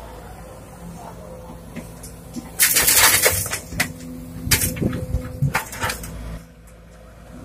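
Sumitomo SH210 excavator's diesel engine running steadily while a bucketload of soil is tipped into a dump truck's bed: about two and a half seconds in, a loud rush of falling earth and clods strikes the bed for some three seconds, with several heavier thuds, then stops abruptly.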